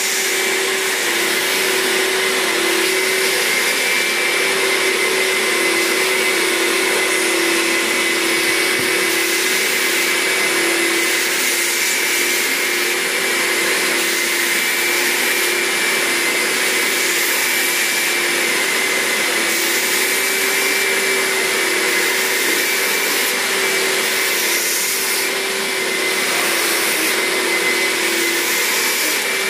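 Upholstery spray-extraction machine's vacuum motor running steadily, an even whine over a hiss as its hand tool sucks on the wet sofa fabric. The level dips slightly near the end.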